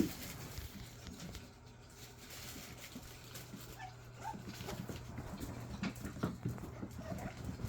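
Puppies moving about and playing: faint scattered pattering and small clicks, with a few short high squeaks. A single knock at the very start.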